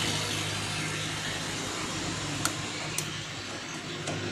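Halogen convection oven with a glass bowl running: a steady low hum over a hiss, with two light clicks about half a second apart a couple of seconds in.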